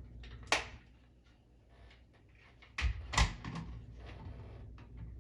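Plastic clicks and knocks from handling a smoke alarm and its batteries during battery testing: a sharp click about half a second in, then two heavier knocks close together around three seconds in, over a low steady hum.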